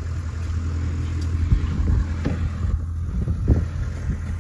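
Nearby engine idling with a steady low hum, with wind buffeting the microphone in uneven low thumps from about a second and a half in.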